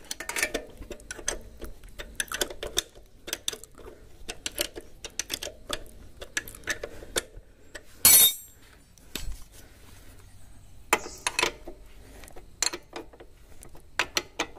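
Steel ring spanner clicking and clinking on a motorcycle's footrest-bracket bolt as it is tightened, in short irregular ticks and knocks, with one louder clatter about eight seconds in.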